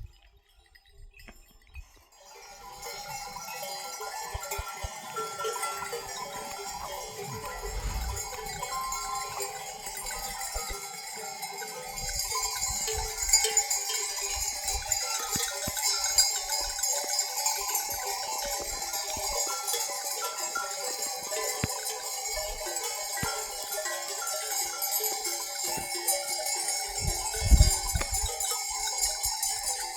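Many neck bells on a herd of sheep and goats clinking and jangling continuously as the animals move, starting about two seconds in. A few low bumps sound under the bells, one louder near the end.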